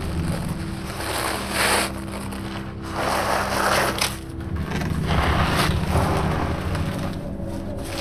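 Gritty scraping and crunching of debris under a body and hands crawling through a narrow duct, in four or five rough surges. A low steady drone runs beneath.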